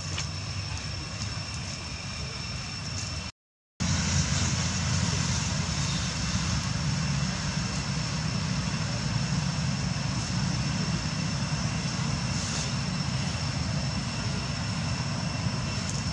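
Steady outdoor background: a low rumble with a thin, steady high whine over it, broken by a brief total dropout a few seconds in.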